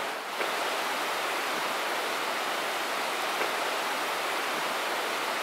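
Rushing water from a creek or river, a steady even hiss without pause.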